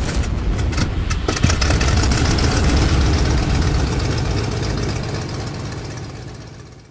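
Closing logo sound effect: a deep, engine-like rumble with a sharp hit about a second and a half in, fading out near the end.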